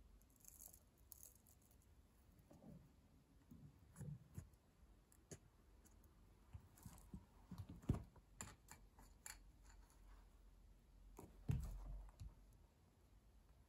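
Faint scattered clicks and creaks of a stiletto boot heel pressing on and rolling a wooden pencil against the floor, with two louder knocks, one just past the middle and one near the end.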